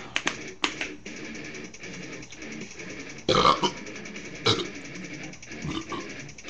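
A man burping loudly about three seconds in, then a shorter burp about a second later, with a few sharp clicks near the start over background music.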